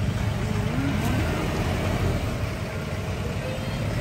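Steady low rumble of a road vehicle running, with street noise around it.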